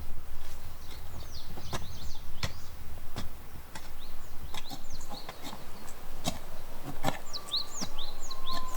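Small birds chirping in short, quickly bending notes, over irregular sharp knocks and taps. Near the end a thin steady tone sets in and holds.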